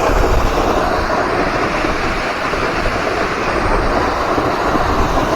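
Steady, loud roar of a waterfall's rushing water, with wind rumbling on the microphone.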